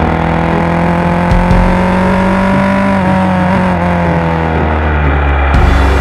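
KTM 690 Duke R's single-cylinder engine running on the move at part throttle. Its pitch rises slightly for the first half, then falls as the revs drop.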